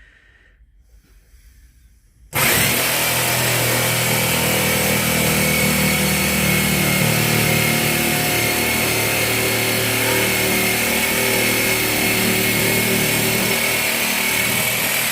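An electric power tool switches on about two seconds in and runs steadily at full speed with a constant high whine.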